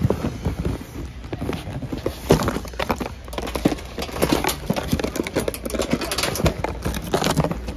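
Cardboard boxes knocking and rattling as they are loaded into a wire shopping cart: irregular short knocks, the loudest about two seconds in, over a low steady hum.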